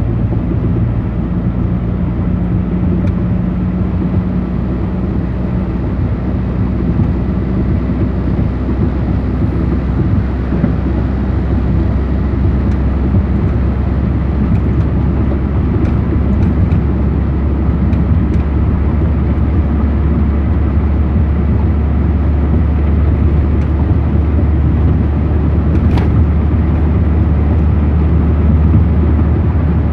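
Steady road and engine noise inside a moving car's cabin at highway speed: an even low drone of tyres and engine.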